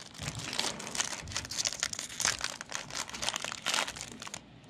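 Foil wrapper of a Panini basketball trading-card pack crinkling in quick, irregular crackles as it is torn open and handled, dying away near the end.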